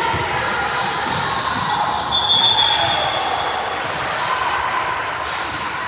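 Basketball game play in a gym: a ball bouncing and voices. About two seconds in, a whistle blows once and holds for about a second.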